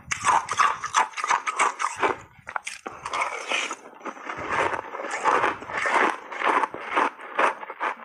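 Refrozen ice chunks with matcha tea and milk powder being chewed up close to the microphone: a fast run of crisp, loud crunches, easing briefly about two and a half seconds in before the crunching starts again.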